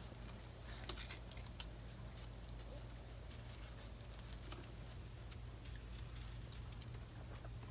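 Faint scattered clicks and scuffs of black German Shepherd puppies' claws and paws on concrete pavers as they play and walk about, the sharpest click about a second and a half in, over a steady low hum.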